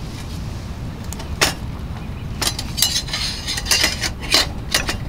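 Sharp metallic clinks and taps from a small metal hurricane oil lantern being handled, its wire bail handle and frame knocking as it is picked up from a wooden table. A single clink comes about a second and a half in, then a quick run of several more near the middle and end, over a low steady rumble.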